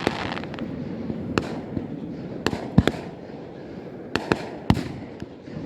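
Fireworks going off: a run of sharp bangs at irregular intervals over a steady background rumble, the loudest about three seconds in, with a short crackling hiss at the start.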